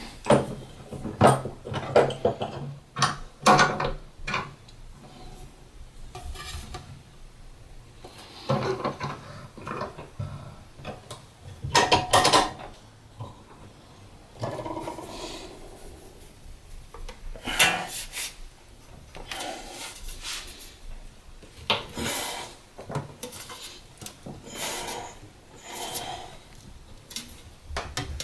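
Aluminum sheet metal and clamps being handled on a workbench: a string of irregular knocks and clatters with scraping and rubbing between them as the piece is set in place, clamped up and bent by hand.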